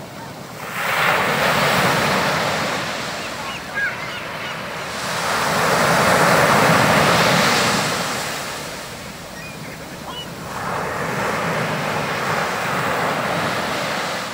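Ocean surf washing onto a sandy beach: a steady rush of breaking waves that swells and ebbs three times.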